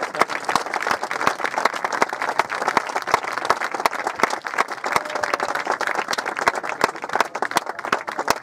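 Crowd applauding, a steady patter of many hand claps with no let-up.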